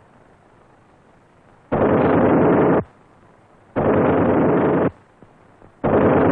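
Browning .50 calibre aircraft machine gun firing in short bursts of about a second each: three bursts, roughly two seconds apart, the last one starting near the end.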